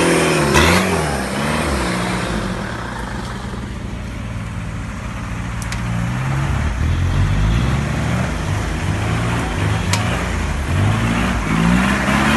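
Off-road vehicle's engine running under load, revving up and easing off as it is driven; it gets quieter in the middle and builds again near the end, with two short sharp knocks about six and ten seconds in.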